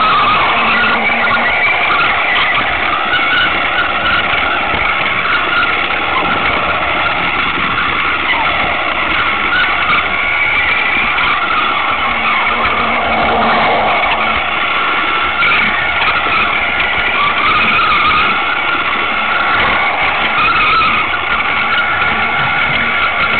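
Lego Duplo toy train's small electric motor running with a steady whine, its plastic wheels rattling along the plastic track, heard close up from on board the train.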